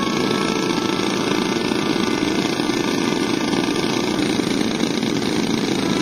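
Radio-controlled model aircraft engine running steadily with a loud buzz.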